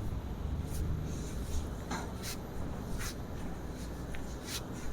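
Hands working on a patient: rubbing and shuffling of skin and clothing against the treatment table over a steady low hum, with about five short, faint clicks.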